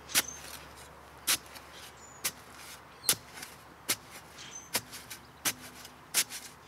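Flat-bladed spade being driven down into lawn soil, about eight short sharp chops roughly one a second, cutting the edge of a hole.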